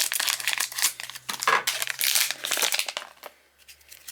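Wrapper of a hockey card pack crinkling and tearing as it is ripped open: dense crackling for about three seconds, then a few soft clicks.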